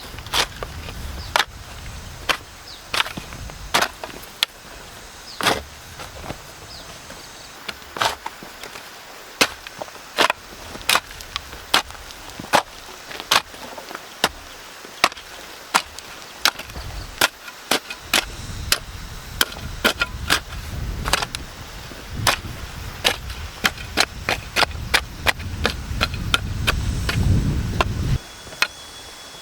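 Repeated sharp chopping strikes of a tool on wood, irregular, one or two a second. A low rumble builds over the last ten seconds and cuts off suddenly near the end.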